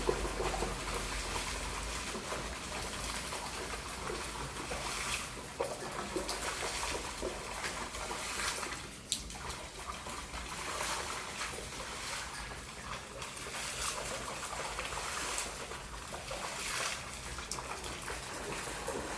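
Water trickling and splashing steadily, broken by many irregular small splashes, as in floodwater and heavy typhoon rain.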